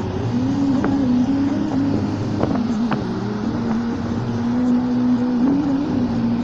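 Heavy mining machinery running with a loud, steady drone whose pitch wavers slowly up and down, with a few sharp clicks about two and a half and three seconds in.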